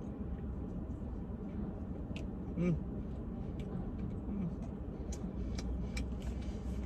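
Someone eating: small wet mouth clicks and chewing while tasting chicken dipped in spicy buffalo sauce, over a steady low hum of a car interior, with a short murmur about two and a half seconds in.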